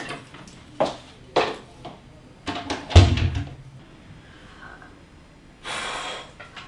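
Wooden wardrobe doors being handled: several sharp knocks and clicks, then a loud low thump about three seconds in as a door shuts. A short rushing noise comes near the end.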